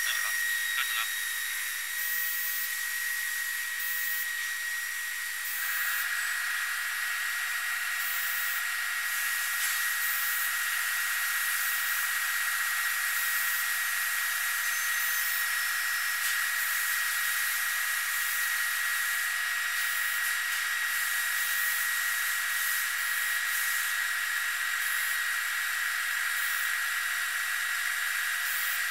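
Induction heating machine whining with a steady high-pitched tone over a hiss while its copper coil heats a bandsaw blade's teeth red-hot for hardening. About five seconds in, lower tones join the whine and it grows fuller.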